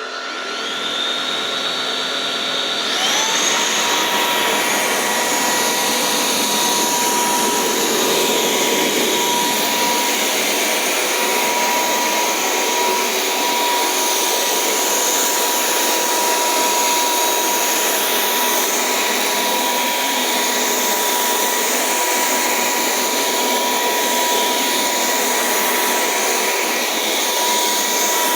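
Cordless stick vacuum cleaner's motor switching on and spinning up, stepping up to a higher speed about three seconds in, then running steadily with a high whine.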